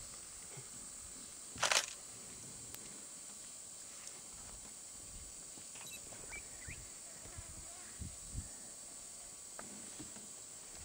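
A white rhino gives one short, breathy snort about two seconds in, over quiet bush ambience with a steady faint hiss; a few faint soft knocks follow later.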